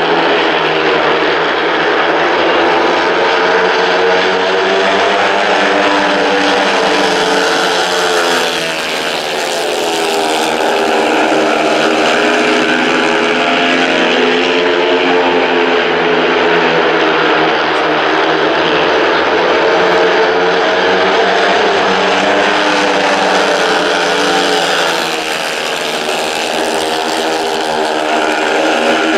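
A pack of four speedway motorcycles racing, their 500 cc single-cylinder methanol-fuelled engines running hard with the pitch rising and falling as the riders throttle through the bends. The sound swells and fades twice as the pack goes round the track.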